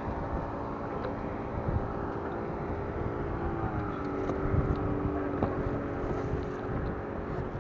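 A boat motor running with a steady hum whose pitch drops a step about three and a half seconds in, with wind on the microphone and a few light knocks.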